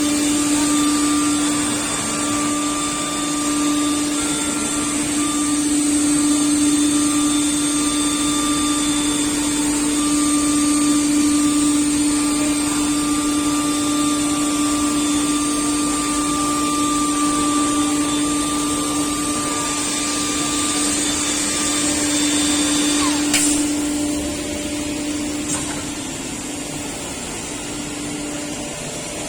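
CNC panel-cutting router running steadily, a constant pitched hum over a broad hiss. There is a sharp click about 23 seconds in, after which the machine sound is a little quieter.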